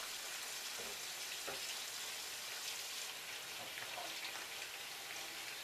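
Meatballs sizzling in a frying pan: a steady crackling hiss of frying fat.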